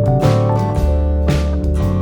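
Background music with a steady beat, guitar and keyboard over bass and drums.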